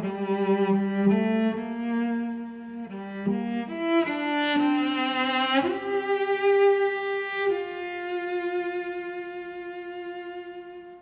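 Slow instrumental background music: long held notes that move smoothly from one to the next, with a rising slide about halfway through, ending on a long held note that fades out.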